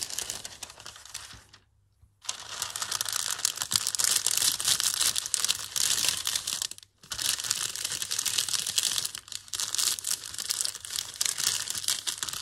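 Thin greaseproof paper rustling and crinkling as hands press and rub it down over hop sprigs on an inked gel printing plate to pull a print. The crinkling stops briefly about two seconds in and dips again for a moment about seven seconds in.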